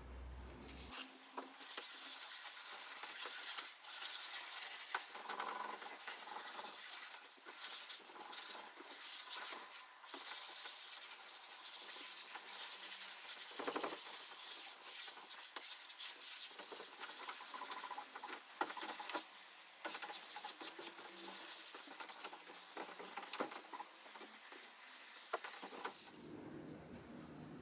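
A cloth pad rubbed back and forth by hand over a mahogany tabletop, working in a freshly poured finish and wiping off the excess. The scrubbing comes in strokes with brief pauses, starts about a second in and dies away shortly before the end.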